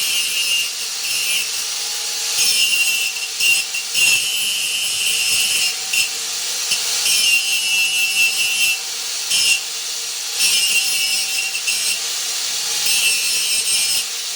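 Angle grinder running on steel. The disc's rasp comes and goes every second or so as it is pressed onto the metal and lifted off, over the steady whine of the motor.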